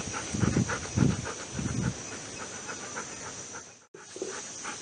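Labrador retriever panting in quick short breaths, with a few louder low puffs in the first two seconds. The sound cuts out briefly near the end.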